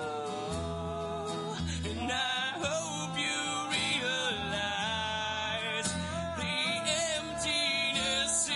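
Live acoustic band music: strummed acoustic guitars over an acoustic bass guitar walking through low notes, with light drum percussion. About two seconds in, a voice comes in singing a wavering held line.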